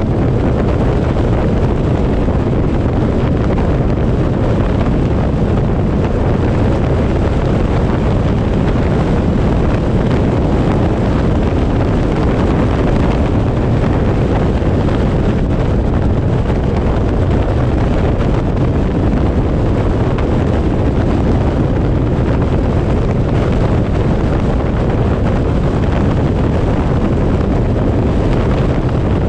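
Steady wind rushing over the microphone of a vehicle driving along a paved highway, with low road and engine noise underneath.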